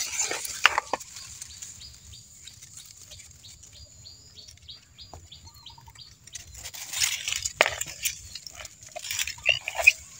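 Rustling and crackling of dry leaves and twigs as ground litter is handled, loudest near the start and in the second half, over a steady faint high insect drone. In the quieter middle a regular run of short high chirps, about four a second, goes on for a few seconds.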